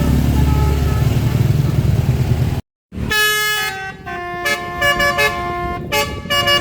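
Heavy low rumble of a bus engine, with faint horn notes over it. After a brief cut a little under halfway through, a basuri-style telolet bus horn, a multi-trumpet air horn, plays a melody of held notes stepping up and down in pitch.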